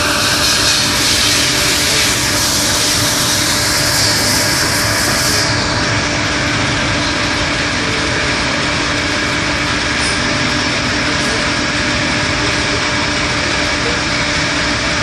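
CLC 200-SZ MULTIRUN gear shaping machine running steadily, a continuous machine hum with a few held tones. A high hiss fades out about five seconds in.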